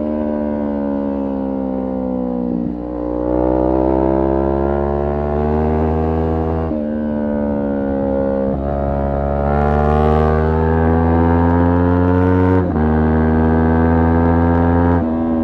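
Kawasaki Ninja 400's parallel-twin engine under hard riding, its pitch gliding up and down with road speed and jumping abruptly about five times at gear changes.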